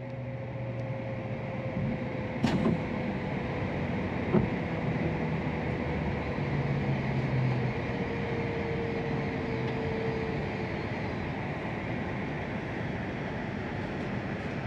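E6-series shinkansen heard from inside the passenger car as it slows into a station: steady running noise with a whine that slowly falls in pitch as the train decelerates. Two short sharp knocks come about two and a half and four and a half seconds in.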